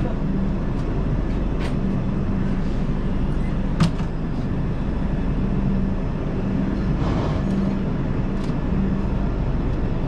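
Passenger train moving off, a steady rumble of the coaches with a low hum that comes and goes. A few sharp clacks of the wheels on the track, the loudest about four seconds in.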